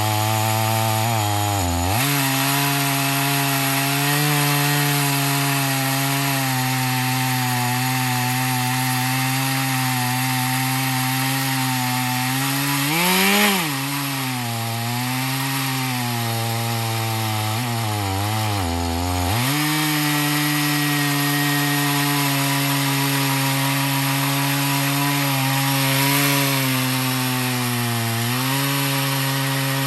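Two-stroke chainsaw running under load as it rips a cedar log lengthwise into slabs. Its engine note holds steady, sags briefly a few times, and rises sharply then falls once about halfway through.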